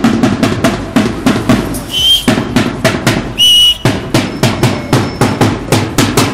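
Protest drumming: drums beaten in a steady, fast rhythm of about four strokes a second. A shrill whistle is blown twice over it, briefly about two seconds in and longer and louder about three and a half seconds in.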